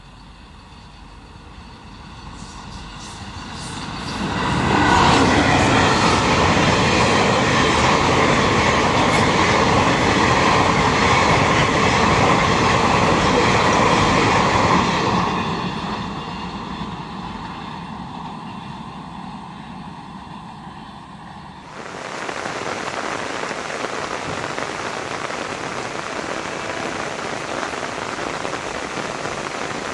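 A train passing on the track: the rumble and clatter of its wheels on the rails builds over a few seconds, stays loud for about ten seconds, then fades. About two-thirds of the way through, a steady rail rumble starts abruptly and continues.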